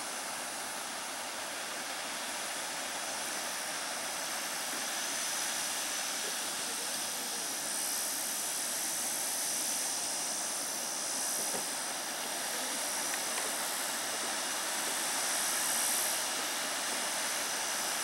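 Steady rush of a small waterfall pouring over rocks into a stream, an even hiss that swells a little now and then.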